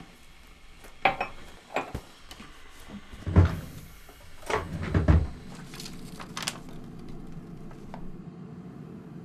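Kitchen clatter from making tea: a handful of sharp knocks and clinks of cupboard doors and crockery, the loudest about three seconds in. A steady low hum sets in about halfway through.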